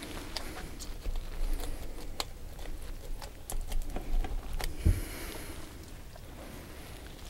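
A cheek knife cutting into a tripletail's head: scattered small clicks and scrapes of the blade on scales and bone, with one dull thump a little before five seconds in.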